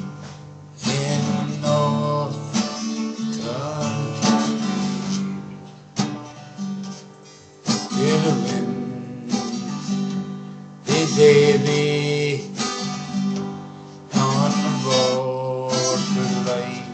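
Background music: an acoustic guitar strumming chords, with a fresh strum every few seconds.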